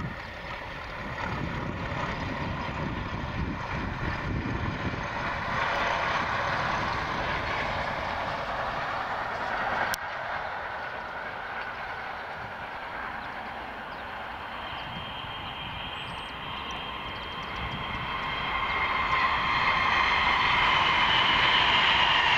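Distant Class 31 diesel locomotive hauling a test train, a low rumble with wind on the microphone. About four seconds from the end a second passing train grows louder with a steady whine.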